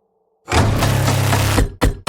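Harsh bowed-string horror effect: a loud grinding, scraping screech that starts abruptly about half a second in, holds for about a second, then breaks off into a short stab near the end.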